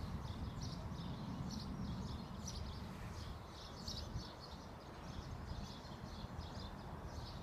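Small birds chirping repeatedly over a low, steady outdoor rumble.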